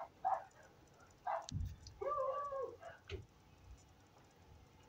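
A dog barking a few short times, then giving a longer, drawn-out whining call about two seconds in. There is a dull knock in between.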